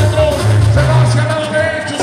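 A song with a singing voice over a heavy bass line; the bass drops out near the end.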